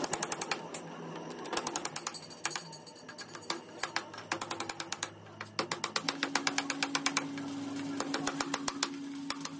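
Quick runs of light hammer taps on a steel punch set against a wheel hub bearing's inner ring, several metal-on-metal taps a second in bursts with short pauses. A faint steady hum joins about six seconds in.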